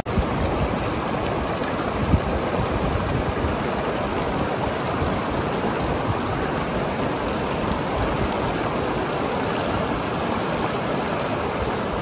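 Fast mountain river rushing over boulders: a steady, even rush of white water.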